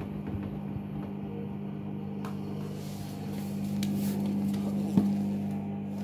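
Hoover front-loading washing machine running with a steady low hum while an over-sudsed load swishes in the drum. The swishing picks up about two seconds in, and there is a single knock near the end.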